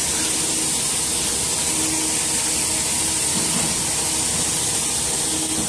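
Steady hiss of hot air rushing from a HIGHTEX S700 hot air welding machine's blower and nozzle.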